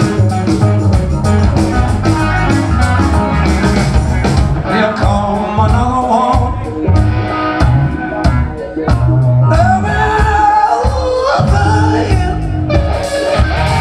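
Live rock band playing: electric guitar, bass and drum kit, with a male lead vocal coming in about five seconds in.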